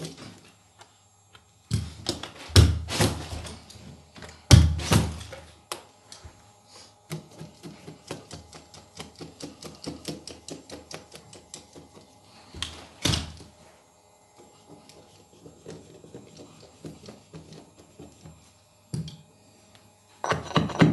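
Carpet knee kicker and hand tools working carpet into the edge at a doorway threshold. Several heavy thumps come about two seconds in, again near four and a half seconds and near thirteen seconds, with a run of quick light ticks and scrapes between them.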